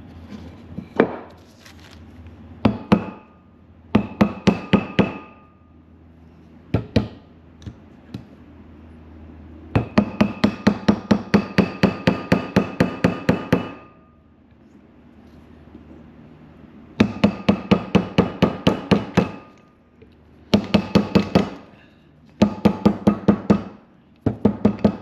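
Hammer striking metal to drive a part home in a Chevy C10 front wheel hub while fitting the inner wheel bearing. The blows come in quick runs of about five a second, with a metallic ring, separated by short pauses; the longest run lasts about four seconds in the middle.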